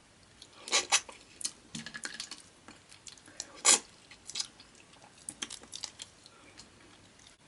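Boiled prawns being peeled and eaten: irregular crackling clicks of shell breaking, with chewing between them.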